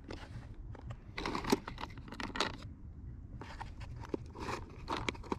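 A hand rummaging in a plastic tackle box, with small plastic tools and floats clicking and rattling against each other in two bouts of clatter.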